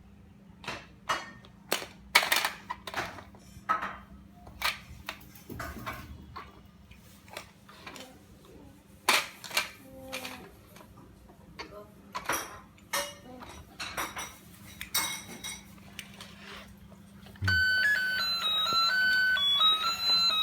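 Irregular plastic clicks and taps from a children's toy fishing game set being handled. Near the end a simple electronic beeping tune starts suddenly.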